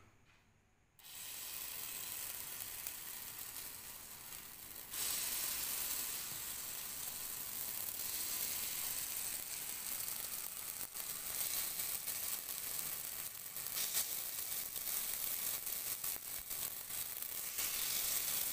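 Dal vada batter sizzling as spoonfuls drop into the cups of a hot, oiled appe pan. A steady hiss starts about a second in and grows louder about five seconds in, with a few light clicks.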